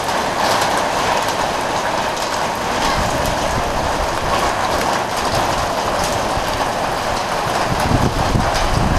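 Heavy rain falling steadily, a dense hiss full of small drop taps. A low rumble comes in near the end.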